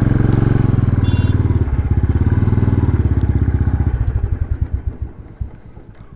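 Motorcycle engine running at low revs with a fast, even pulse, then winding down over the next second or so and stopping about five seconds in.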